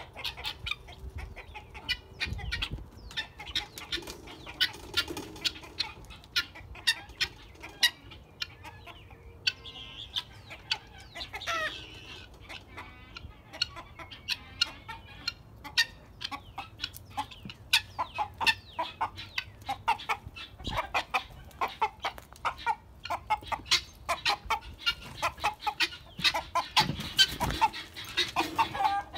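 Chickens clucking and calling with many short, sharp notes in an uneven run, with a brief low rumble near the end.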